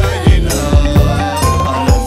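Dance music with a steady drum beat and a held melodic line over it.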